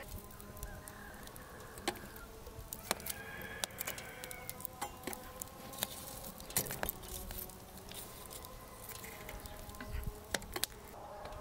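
Irregular sharp crackles and clinks from a small metal wood-burning stove as the fire in its open firebox is stirred with a metal poker.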